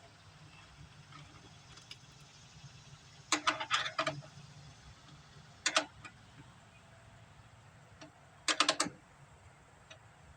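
Hand socket ratchet clicking in three short bursts as bolts are run in and snugged up.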